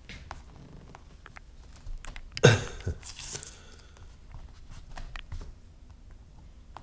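Scattered light clicks and taps, with one sharp, loud knock about two and a half seconds in.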